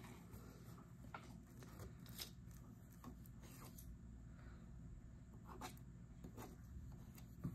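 Near silence with faint, scratchy strokes and dabs of a paintbrush working acrylic paint on a board, a few soft brushings spread through.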